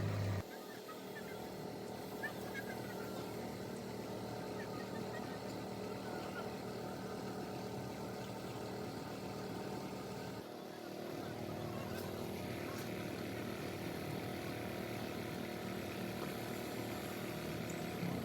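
Engine running steadily at a constant speed, with a brief dip about ten seconds in.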